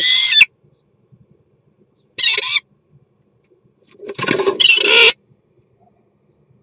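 Common starling giving its courtship song inside a wooden nest box: three loud bursts of whistles mixed with harsh chatter, the third the longest at about a second, starting some four seconds in.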